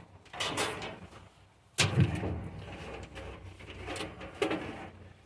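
Handling noises from a loose automotive wiring harness being sorted and strung out: irregular rustling of the wire bundle with a few knocks, the loudest about two seconds in.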